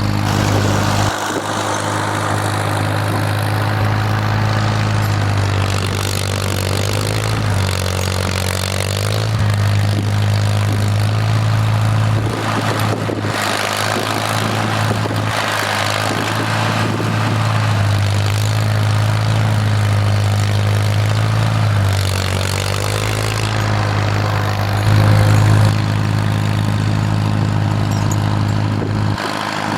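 Farmall M tractor's four-cylinder engine running steadily under work, its pitch shifting up and down several times as the revs change.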